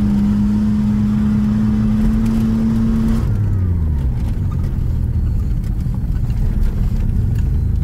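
Off-road vehicle engine running at a steady high note, then its revs drop sharply about three seconds in and it settles to a lower steady note.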